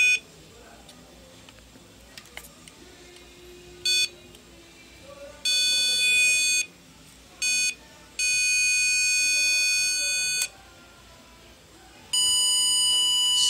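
Power Probe 4 circuit tester giving out electronic beeps while it is used to load-test a fog lamp. There are about five beeps of different lengths: short ones about 4 and 7.5 seconds in, a one-second beep, a two-second tone, and a last tone near the end with a lower note added.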